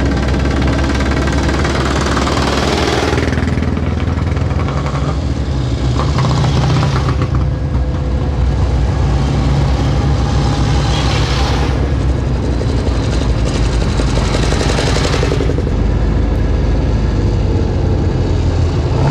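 Vintage motorcycle engines running as a line of old bikes rides by. The sound swells about every four seconds over a steady low engine rumble.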